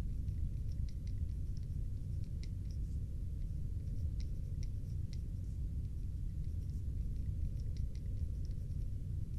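Pencil writing on graph paper, heard as faint, irregular scratchy ticks over a steady low rumble.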